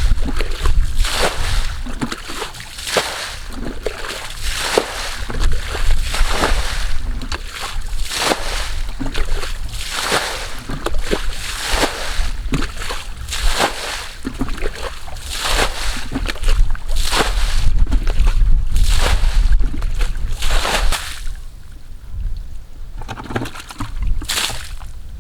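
Muddy water sloshing and splashing in repeated irregular strokes, roughly one a second, fewer near the end.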